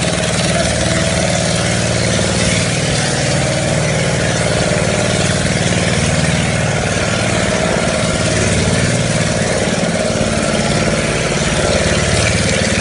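An engine running steadily at an even pitch, with a constant hiss over it.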